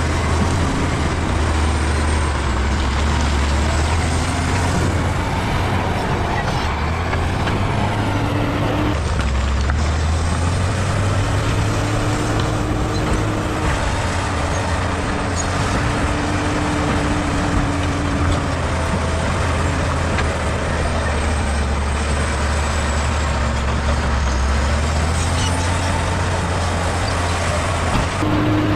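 Bulldozer's diesel engine running under load, with a deep steady drone whose pitch shifts as the engine speed changes. A faint high whine rises and falls above it.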